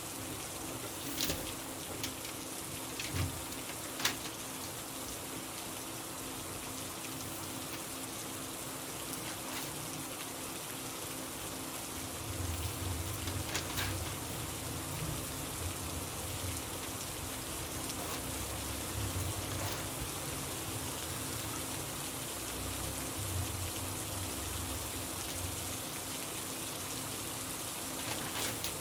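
Steady rain, an even hiss, with a few sharp ticks in the first few seconds and another near the middle, and a low rumble that comes and goes from about halfway.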